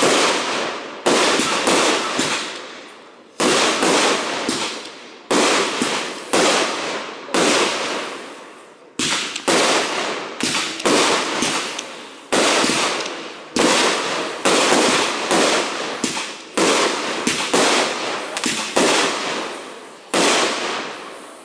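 Aerial fireworks shells bursting one after another, about one bang a second, each bang trailing off before the next.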